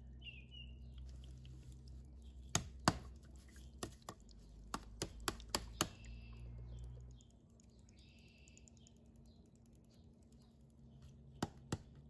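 Sharp plastic taps as the upturned acid-bottle pack is tapped down onto the cells of a new AGM motorcycle battery to break the foil seals and drain the electrolyte: a quick run of about eight taps between two and six seconds in, then two more near the end. A low steady hum underneath stops about seven seconds in.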